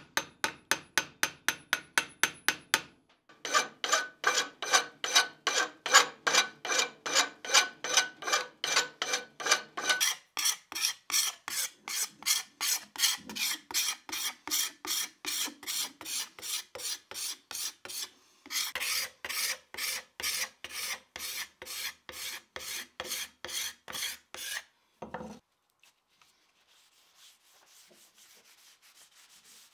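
Hand file rasping across a steel axe head and its wooden handle in quick, even strokes, about three to four a second, with a faint metallic ring: the wood and metal are being filed flush. The filing breaks off briefly a few times and stops a few seconds before the end, leaving near quiet.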